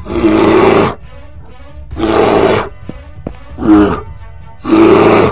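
Bear roar sound effect, repeated in short rough bursts about three times, each under a second long, over background music.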